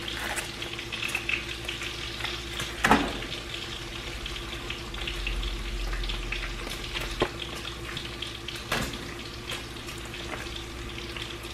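Bacon and Italian sausage frying in skillets: a steady sizzle, broken by a few sharp rustles and clicks as raw sausage is peeled from its plastic-wrapped tray into the hot cast-iron pan.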